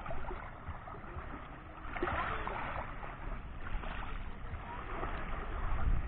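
Small Black Sea waves washing in over a pebble beach at the waterline, water rushing over the stones. The wash swells about two seconds in and again a couple of seconds later.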